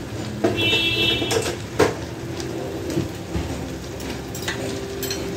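Kitchen clatter of pots and utensils, with several sharp knocks (the loudest about two seconds in) and a short high-pitched whine near the start, over a steady low hum.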